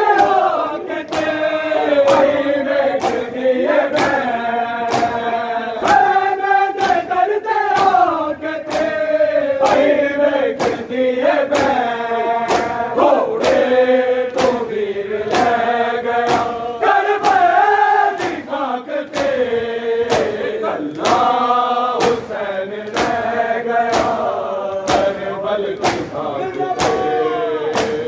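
A group of men chanting a Punjabi noha (Shia lament) in unison, with a steady beat of hands slapping bare chests in matam, about one and a half slaps a second.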